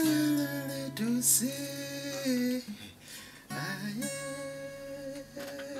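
Live acoustic guitar with a man singing long held notes that slide up into pitch, and a short break about three seconds in.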